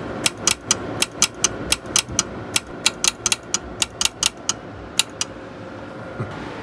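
Keying relay of a six-tube Elkin CB amplifier clicking in and out rapidly, about four clicks a second, as the amplifier is keyed on and off over and over; the clicking stops about five seconds in. The relay pulls in on every key, the sign that the repaired keying circuit with its new transistor is working.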